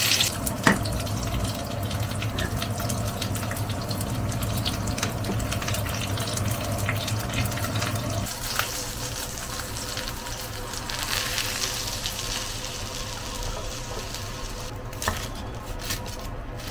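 Food sizzling in a frying pan, with many small crackles and pops through a steady hiss; the sizzle settles a little about eight seconds in.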